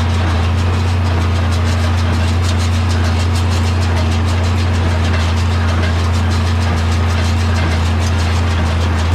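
Tractor engine running steadily under load while working a John Deere small square hay baler in the field, a constant low drone with a faint, regular mechanical clatter over it.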